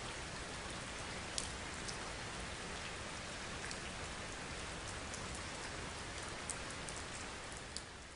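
Steady hiss with a few scattered sharp ticks, fading out in the last second.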